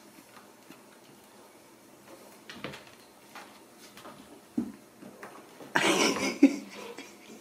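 Kittens scuffling over a pair of soft bedroom slippers on a hard floor: scattered light knocks and scrapes of slippers and paws, with a louder, noisier scuffle about six seconds in.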